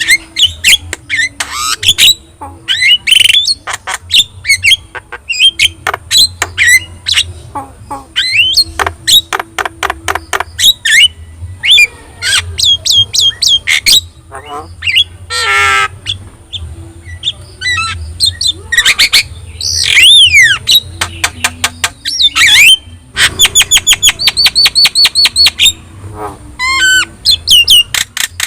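Javan myna (jalak kebo) singing in full, varied song: short whistles and sliding notes mixed with harsh squawks. A fast run of repeated clipped notes comes about three-quarters of the way through.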